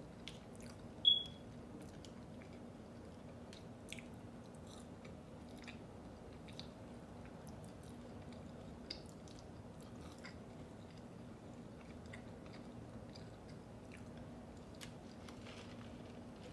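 Close-miked eating of Chick-fil-A food: chewing, with many small wet clicks and crunches over a faint steady hum. About a second in there is one brief high-pitched chirp, the loudest sound here.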